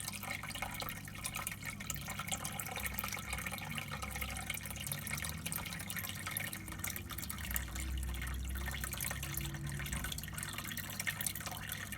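Water dripping and trickling over a steady low hum.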